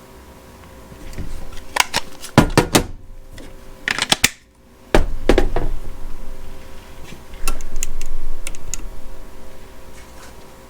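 Handling noise: a run of irregular sharp clicks and knocks of hard objects being moved and set down, with a low rumble under them.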